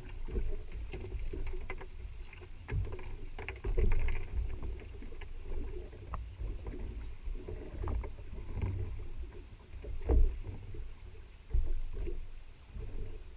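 Sounds aboard a small fishing boat: a steady low rumble with irregular knocks and clicks, the loudest knocks about four and ten seconds in.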